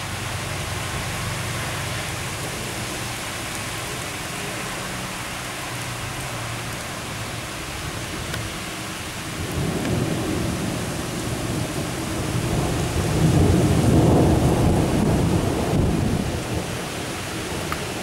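Steady rain hiss with a long roll of thunder that swells about halfway through, is loudest a few seconds later, then dies away.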